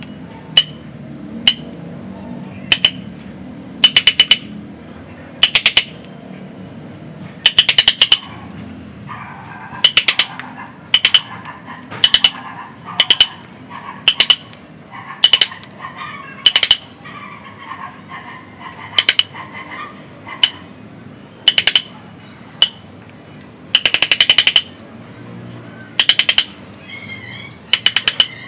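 A metal-tipped hand chisel picking and scraping at a fig bonsai's trunk and the soil around its roots. It gives sharp, ringing metallic clicks about once a second, some in quick pairs or threes, with rougher scraping between them through the middle.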